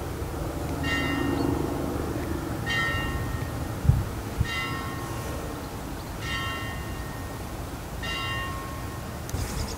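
A bell tolling: five even strikes about two seconds apart, each ringing on and fading, over a steady low rumble. Two short low thumps about four seconds in are the loudest moments.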